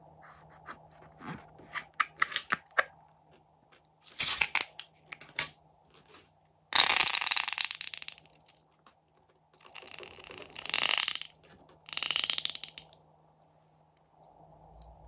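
Slime and air squeezed out through the neck of a rubber balloon: after a few light clicks, a run of wet, spluttering bursts, the longest and loudest about seven seconds in.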